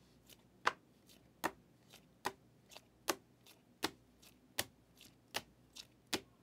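Rigid plastic trading-card holders clicking against each other as a stack is flipped through card by card. There is a sharp click about every three-quarters of a second, with fainter clicks in between.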